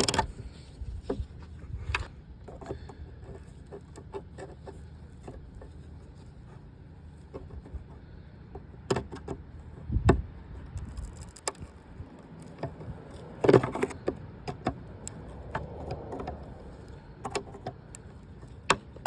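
Hands handling a car door mirror's glass and plastic housing: scattered clicks, taps and small knocks, with a louder knock about ten seconds in and a cluster of knocks a few seconds later, over a low steady background rumble.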